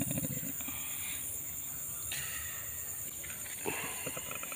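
Steady high-pitched insect chirping, crickets, with faint voices near the start and about four seconds in.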